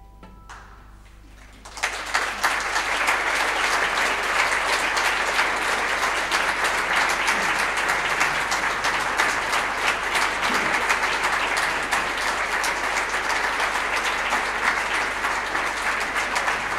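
Audience applause breaking out about two seconds in, at the end of a performance, and going on as dense, steady clapping.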